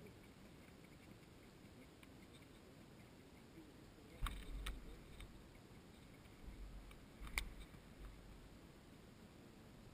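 Quiet background with faint gusts of wind rumbling on the microphone, and three sharp clicks: two close together about four seconds in, another about seven seconds in.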